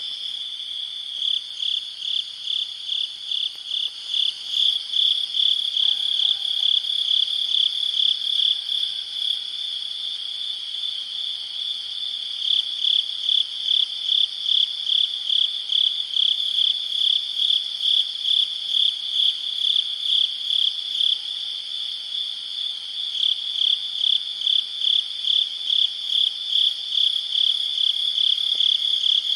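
Crickets chirping at night: a high, continuous trill pulsing in regular chirps about three a second, with two stretches where the chirps blur into a steadier trill before the pulsing resumes. Fainter, higher insect calls run underneath.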